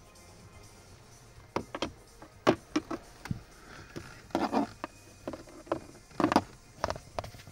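Scattered clicks and knocks of hands and a tool on the car's plastic dashboard and glovebox trim, with a quick cluster about four and a half seconds in and another a little after six seconds.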